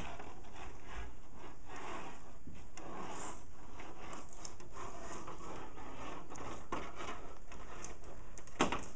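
Light rustling and scattered clicks of handling over a steady faint background hiss, with a couple of sharper clicks near the end.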